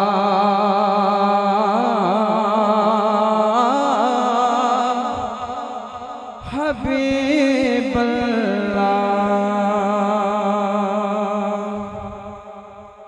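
A male naat reciter singing into a microphone, drawing out long wavering notes in a melismatic phrase of the salutation. There is a short break about six and a half seconds in, then a second long held phrase that fades out near the end.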